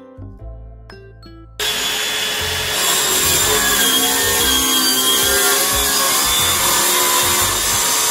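Light background music with plucked notes, then about a second and a half in a cordless circular saw starts abruptly and cuts through a plywood sheet, running steadily and loudly to the end.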